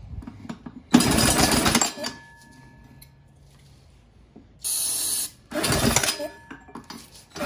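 Briggs & Stratton lawnmower engine spun over twice by a drill for about a second each, with a short hiss of starting fluid sprayed into the intake between the two cranks. The engine is being tested on ether for compression and spark.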